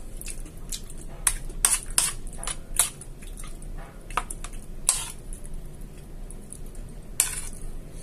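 Eating with a metal spoon from a ceramic plate: a series of short, sharp clinks, scrapes and crunches. They come thickest in the first three seconds, then a few more, and a last one about seven seconds in.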